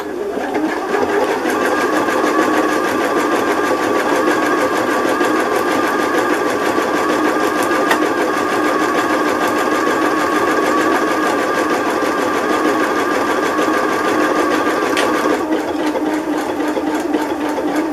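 Janome 1050DC computerized sewing machine running steadily on its start/stop button, without a foot pedal, sewing a decorative stitch along a fabric edge. The sound shifts slightly about fifteen seconds in.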